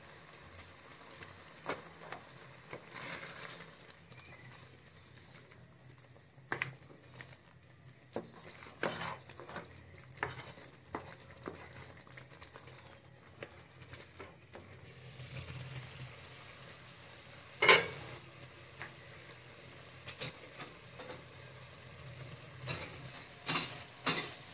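A spoon stirring chicken masala in a cooking pan, with irregular scrapes, clinks and knocks of metal on the pan over a faint sizzle. The loudest knock comes about two-thirds of the way through, with a quick cluster of clinks near the end.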